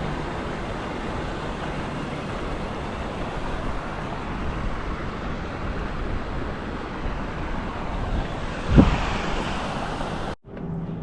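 Steady rushing noise with no clear pitch, with one low thump about nine seconds in. The sound cuts off abruptly shortly before the end.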